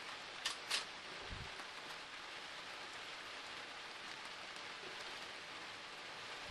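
Steady, even hiss of background noise, with two sharp ticks about half a second in and a soft low thud just after a second.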